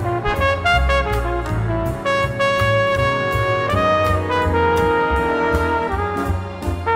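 Instrumental background music with a steady beat, a pulsing bass line and a held melody on top.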